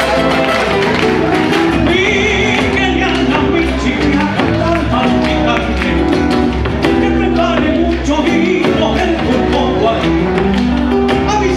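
Live Argentine folk music in the gato dance form: two acoustic guitars strummed with a drum keeping the dance beat.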